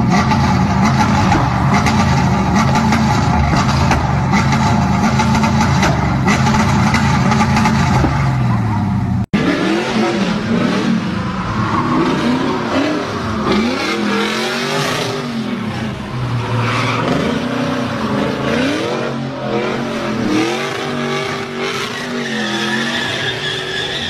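Pontiac Firebird V8 bouncing off its rev limiter: a loud, steady, pulsing engine note that holds one pitch for about nine seconds. It then cuts to the engine revving up and down while the rear tyres squeal through drifts and burnouts.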